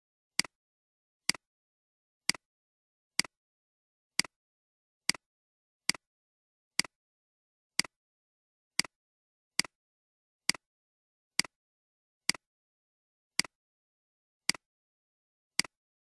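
A computer mouse button clicked about once a second, seventeen times. Each click is a sharp press-and-release pair, with dead silence in between.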